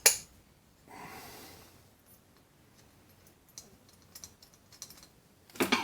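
Light clicks and taps of small screws and a screwdriver being handled while lining up and starting screws into a bench grinder's bearing retaining plate: a sharp click at the start, a few soft clicks in the middle and a louder short rustle near the end, with a breath about a second in.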